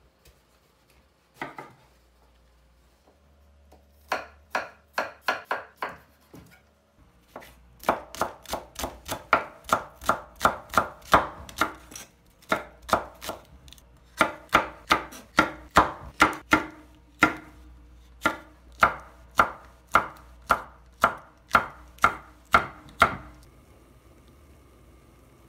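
Kitchen knife chopping on a wooden cutting board, first through a tomato and then a green onion. It goes in runs of crisp, even chops, about two to three a second, with short pauses, and stops shortly before the end.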